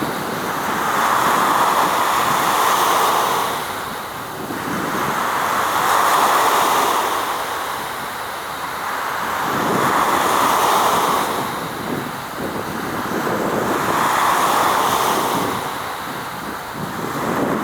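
Waves washing in, a rushing noise that swells and fades about every four seconds.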